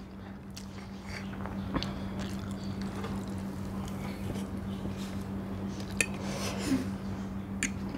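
A metal fork clinks a few times against a plate while noodles are eaten, with quiet chewing, over a steady low hum.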